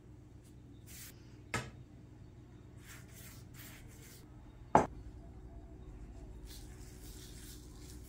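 Thin phyllo pastry sheets being handled and brushed: soft papery rustles and brush strokes. Two sharp knocks, about a second and a half in and just before the middle, the second louder, over a low steady hum.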